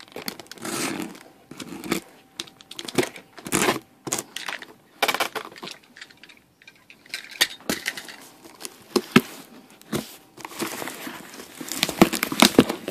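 Box cutter slitting and tearing the packing tape on a cardboard box, with irregular crackles, scrapes and knocks as the box is turned and handled.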